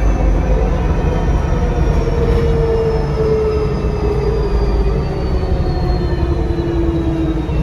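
Diesel bus engine under way, heard from on board, with a loud high turbo whistle. The whistle and the engine note both fall slowly in pitch throughout as the revs drop, over a steady low rumble.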